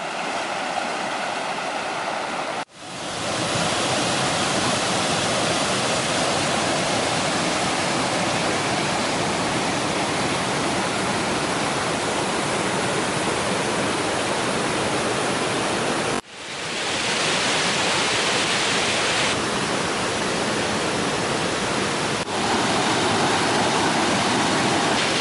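Rushing white water of river rapids and a waterfall, a steady dense rush of water, broken by three short sudden dropouts where the shots change.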